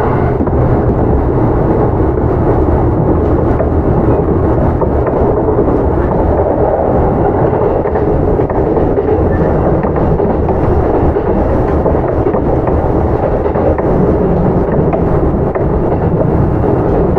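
Onboard running sound of a Kintetsu 8810 series field-chopper electric train car: a steady rumble of wheels on rail at running speed, with no clear change in pace.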